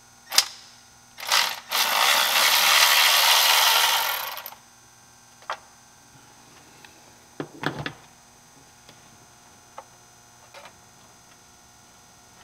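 Hand tools at work in a truck's engine bay: a sharp click, then a loud, steady rushing noise for about three seconds, then scattered clicks and clunks of tool and metal parts.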